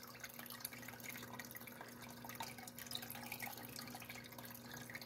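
Small electric sluice running: water trickling and dripping down the riffled chute into its tub, faint and steady, with a steady low hum underneath.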